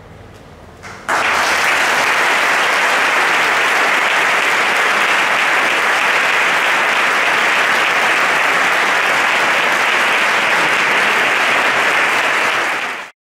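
Audience applauding after a concert band's piece ends. The applause breaks out suddenly about a second in, holds steady, then cuts off abruptly near the end.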